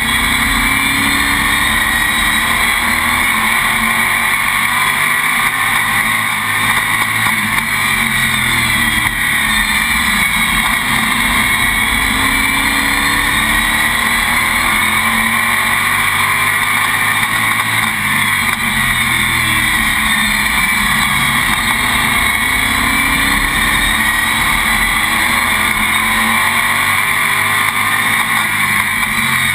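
Oval-track stock car engine heard from inside the cockpit, its pitch repeatedly rising and falling as it accelerates down the straights and lifts for the corners, over a steady rushing noise.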